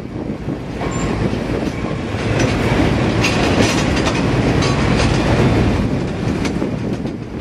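Passenger coaches rolling past close by, wheels clicking over the rail joints along with a steady rumble. The sound swells through the middle and eases off near the end.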